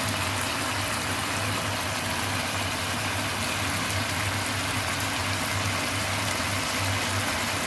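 Steady hiss with a constant low hum underneath from stovetop cooking: a pan of mackerel simmering in tomato sauce.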